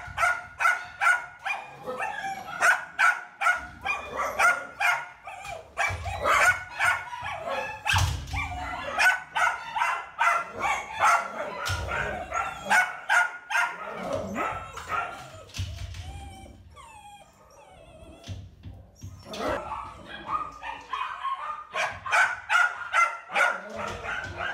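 Dogs barking rapidly and repeatedly, about two to three barks a second, with a short lull about two-thirds of the way through.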